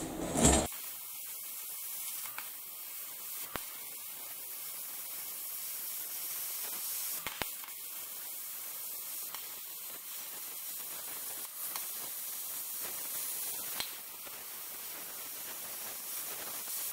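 Steady hiss of a metal-cutting torch working through steel sheet, with a few faint clicks.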